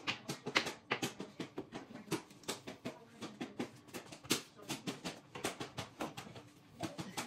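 Kitchen cleanup clatter: a quick, irregular run of small clicks and knocks, several a second, as dishes and kitchenware are handled and cleaned.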